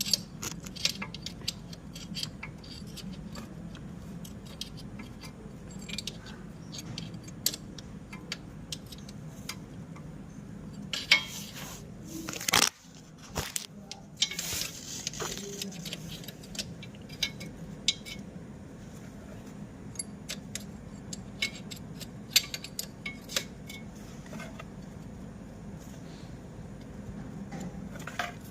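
Metal tools and parts clinking and tapping during motorcycle servicing: many scattered sharp clicks, with a louder cluster about halfway through, over a steady low hum.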